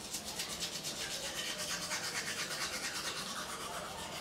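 Manual toothbrush scrubbing teeth with a watery baking soda and vinegar paste: a scratchy brushing sound in quick, even back-and-forth strokes, several a second.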